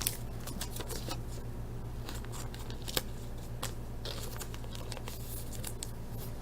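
Hockey trading cards being handled and shuffled through by hand: light rustles and small clicks, with one sharper click about three seconds in, over a steady low hum.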